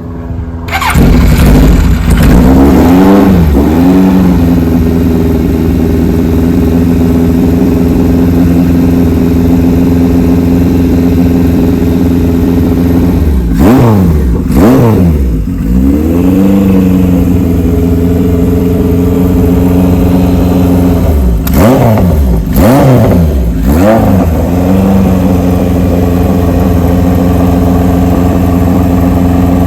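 1978 Kawasaki KZ1000's air-cooled inline-four, big-bored with a Wiseco 1045 kit and breathing through a Kerker header, firing up about a second in and settling into a steady idle. The throttle is blipped a couple of times in the middle and several more times near the end.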